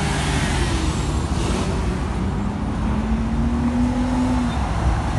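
Cars driving slowly past in heavy traffic, a steady rumble of engines and tyres. From about two seconds in, one engine's note rises gently for a couple of seconds.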